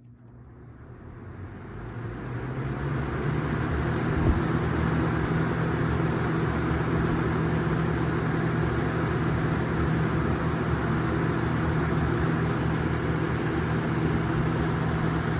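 1993–94 Galaxy box fan with its metal Marco motor starting up on high speed: the whoosh of air builds over the first few seconds, then the fan runs steadily with a low motor hum. A single brief knock comes about four seconds in.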